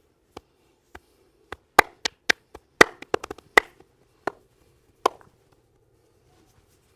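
A masseur's hands striking in a percussive massage: a run of sharp slaps and chops, a few light ones first, then louder and quicker strikes in an irregular rhythm from about two to five seconds in.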